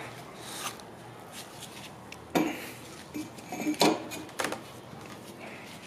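A handful of sharp metal clinks and knocks, the loudest about two and a half and four seconds in, as a brake disc and its carrier hub are handled and slid onto a steel go-kart rear axle.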